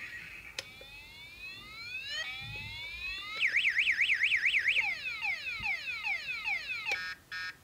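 Electronic siren sounding through a horn loudspeaker and switching between tones: slow rising sweeps, then a fast up-and-down warble of about seven cycles a second, then repeated falling sweeps. Near the end a click switches it to a pulsed beeping of about three beeps a second.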